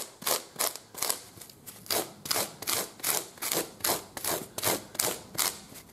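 The coarse teeth along the side of a big rasp scraping a saddle knee-roll block into shape, in rapid rasping strokes of about three or four a second.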